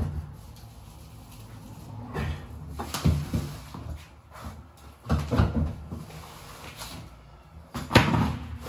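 Several knocks and scrapes from hand work on the exposed wall board behind removed tiles. The board is dotted with dabs of tile adhesive. The loudest events come about two and three seconds in, around five seconds, and near the end.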